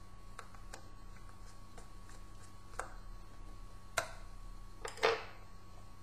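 Plastic laptop casing parts clicking and snapping into place under the fingers: light scattered clicks, then a sharper click about three seconds in, a louder one at four seconds and the loudest double snap about five seconds in.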